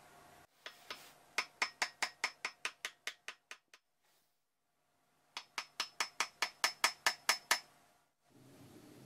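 Two quick runs of sharp, ringing taps, about a dozen in each, coming faster and faster; the first run fades away, the second grows louder.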